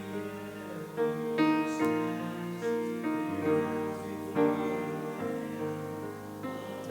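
Piano playing sustained chords, a new chord struck every second or so over a low held bass.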